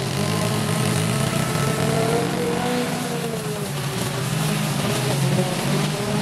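Small gasoline engine of lawn equipment running, its pitch dipping and rising again as the load changes.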